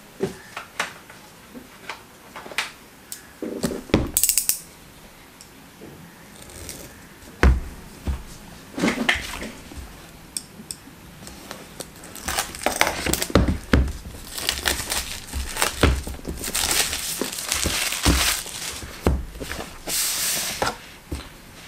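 Plastic shrink wrap being cut and peeled off a cardboard headphone box: crinkling and tearing, with taps and knocks of the box and a utility knife on a cutting mat. From about 12 seconds in, the crinkling and handling become denser and busier.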